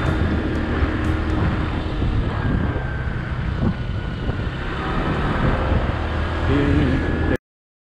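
Motorcycle riding along a road: steady engine hum and rumble with wind rushing over the microphone. The sound cuts off suddenly near the end.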